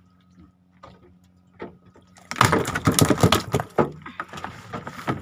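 A rapid, irregular clatter of knocks on a wooden boat deck starting about two seconds in and lasting over a second, followed by fainter rustling.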